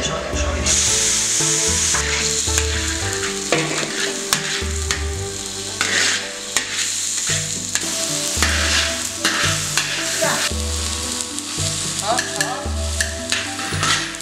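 Egg, diced tomato and rice stir-frying in rapeseed oil in a large wok. A loud sizzle starts about a second in as the tomatoes hit the hot oil, and a long metal spatula scrapes and stirs against the wok again and again.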